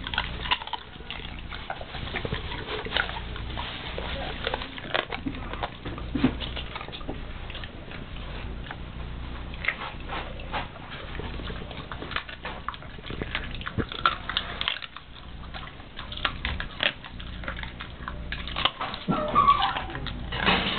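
Rottweiler eating raw food: wet chewing with irregular crunches and clicks.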